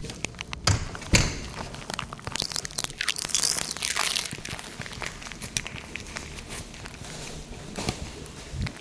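Rustling and crinkling of things being handled, with scattered knocks and clicks; the loudest knock comes about a second in, and a longer rustle runs from about two to four seconds.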